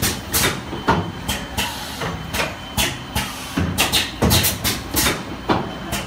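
PVC liquid filling and sealing machine running: a quick, irregular series of sharp clacks and short hisses, a few each second, over a low steady machine hum.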